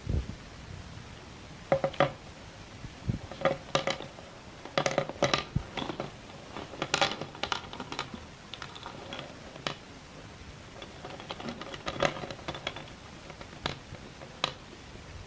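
Sticks of school chalk clicking and crunching: irregular clusters of sharp taps and snaps with short pauses between, busiest in the middle.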